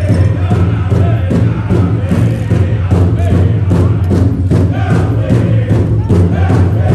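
Powwow drum struck in a steady beat, about two strokes a second, under a group of voices singing a powwow song.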